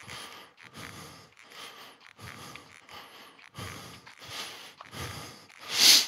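A man laughing in a run of short, breathy bursts, about two a second, with the loudest burst near the end.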